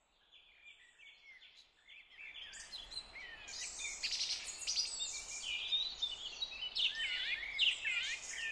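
Several small birds singing and chirping, a busy mix of quick high calls and whistled glides, faint at first and louder from about two seconds in.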